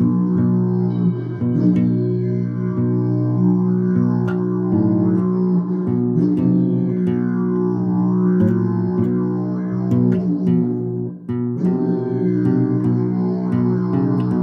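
Didgeridoo played as a continuous low drone, its upper overtones swept up and down by the player's mouth shaping, with short sharp accents throughout. There is a brief break in the drone about eleven seconds in.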